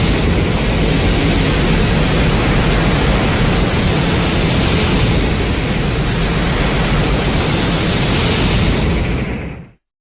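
Film sound effect from the Burning Godzilla set of Heisei Godzilla sounds: a loud, steady rushing noise with deep rumble and hiss, no pitched roar in it, fading out just before the end.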